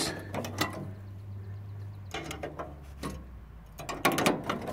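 Needle-nose pliers gripping and working a piece of metal wire, used in place of a cotter pin, out of a hole in a steel bracket on a riding mower's deck linkage: scattered light metallic clicks and scrapes, bunched about two seconds in and again near the end.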